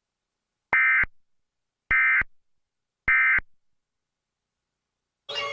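Emergency Alert System end-of-message tones: three short, identical digital data bursts a little over a second apart. They are the SAME code that closes an alert broadcast, here after a tornado warning.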